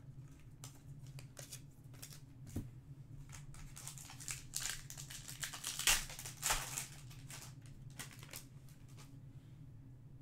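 A Topps Chrome Match Attax trading-card pack wrapper being torn open and crinkled by hand, a run of crackling rustles loudest about four to seven seconds in. A faint steady low hum runs underneath.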